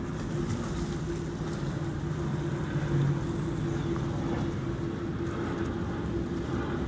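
Canal tour boat's engine running steadily, heard from aboard as a constant low hum with a steady drone over it.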